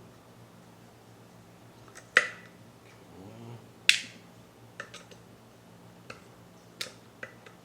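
Sharp metallic clicks and clinks of tools and parts on a Mazzer Mini coffee grinder as its burr-holding bolts are taken out. Two loud clinks with a short ring come about two and four seconds in, followed by several lighter clicks.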